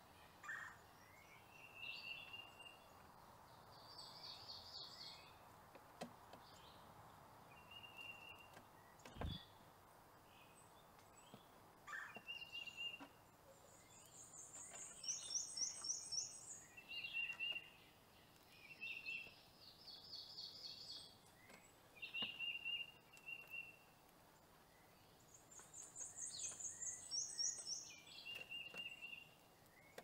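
Small songbirds calling: repeated short, rapid trills and chirps, some very high-pitched, coming every second or two. A single low thump about nine seconds in.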